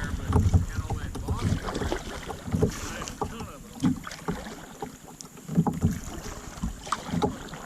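Kayak with scattered knocks against its hull and gear, and wind buffeting the microphone.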